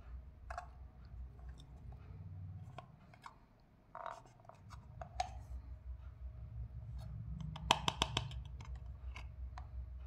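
Hands handling a small plastic toy washing machine: scattered plastic clicks and taps as its clear lid and hose are moved, with a quick run of about six sharp clicks late on.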